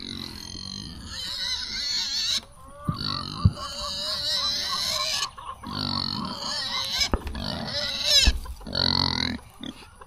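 A pig grunting in a series of drawn-out, wavering calls, each a second or two long, with a few short knocks in between.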